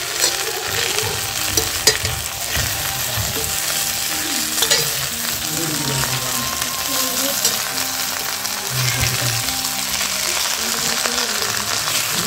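Chicken legs in masala sizzling and frying in a large kadai over a low flame, stirred with a metal spatula. There is a steady sizzle and, every so often, the sharp click or scrape of the spatula against the pan.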